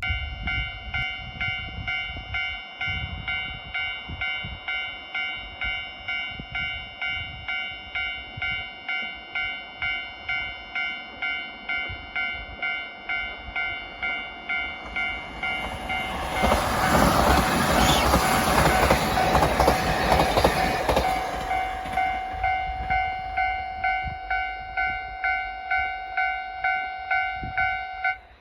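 Japanese level-crossing electronic warning bell dinging in a steady repeated pattern, with a diesel railcar going over the crossing for about six seconds around the middle, its rumble drowning the bell. The bell cuts off suddenly near the end.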